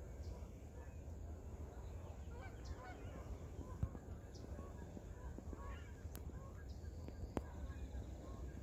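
Outdoor ambience of scattered short bird calls over a steady low wind rumble on the microphone, with a few sharp clicks near the end.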